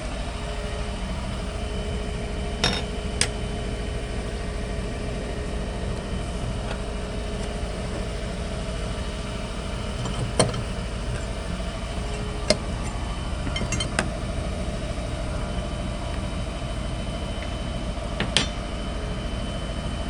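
An engine idling steadily, with about half a dozen sharp metallic clinks and taps scattered through it, a few seconds apart.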